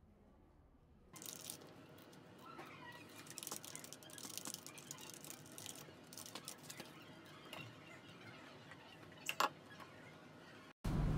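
Paper forms rustling and crackling as a stack of sheets is shuffled and leafed through, with a short sharp click about nine seconds in. At the very end a louder steady low rumble cuts in.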